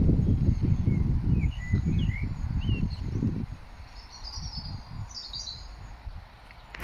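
Small birds chirping in short, rising and falling calls, over an irregular low rumble that dies away about halfway through.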